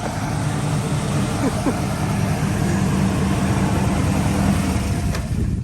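Carbureted Monte Carlo SS engine running loudly and steadily with a deep exhaust note; it cuts off suddenly near the end.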